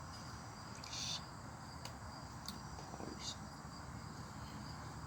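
Faint steady high-pitched chirring of crickets, with a few soft clicks and a brief rustle about a second in.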